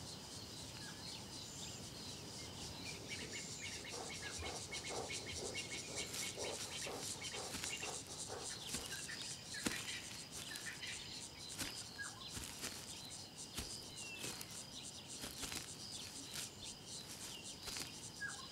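Faint hot-day bush ambience: a steady high insect drone with scattered short bird chirps and a busy patch of quick clicks and ticks through the middle.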